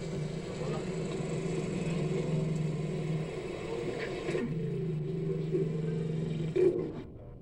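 Soundtrack of a lion documentary playing on a television: a low, steady rumble in two long stretches, with a brief louder sound just before it drops away near the end.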